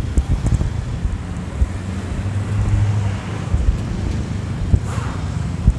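Wind buffeting the microphone in low, uneven thumps over the rumble of passing road traffic, with a steady low engine hum from a vehicle near the middle.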